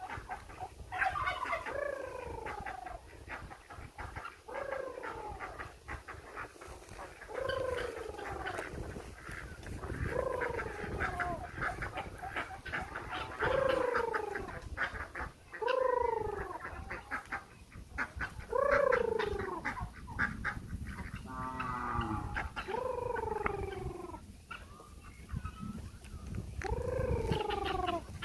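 A farm animal calling over and over: about a dozen drawn-out cries, each falling in pitch, every two to three seconds, one of them wavering.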